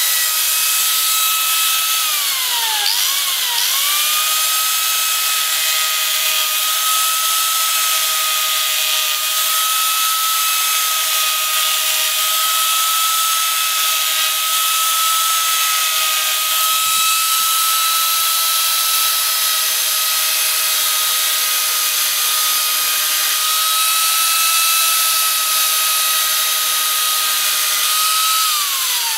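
Arbortech Mini Pro carving tool running with a steady high whine as its small disc cuts grooves into a wooden board. The pitch sags and recovers about three seconds in, and falls again near the end.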